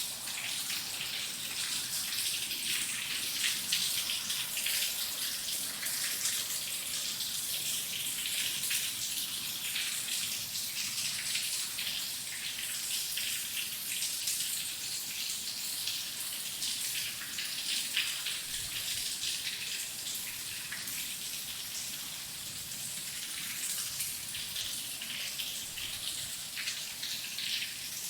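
Steady heavy rain: a dense, even hiss of countless drops striking, with no let-up and no thunder.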